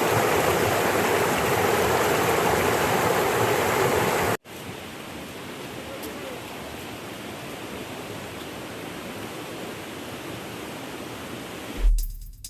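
River water rushing over rocks, loud and steady. About four seconds in it cuts abruptly to a quieter, softer flow. Near the end comes a short, loud low thump.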